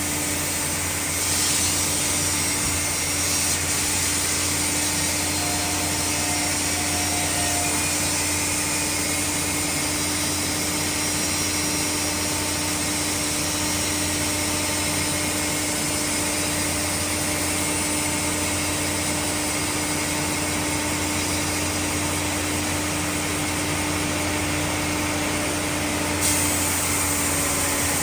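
Sawmill running steadily, its saw and power unit giving a constant mechanical drone with a steady hum underneath.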